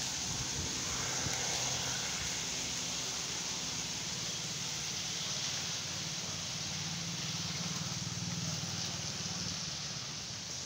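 Steady outdoor street ambience on a wet day: an even hiss with a low rumble of road traffic underneath, swelling about seven seconds in as a vehicle passes.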